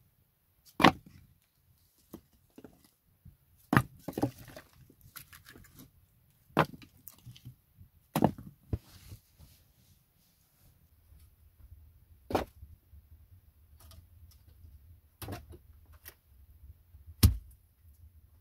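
Split firewood logs being laid onto a woodpile, each landing with a sharp wooden knock on the logs beneath. About seven loud knocks come a second or few apart, with lighter clatters of wood between them.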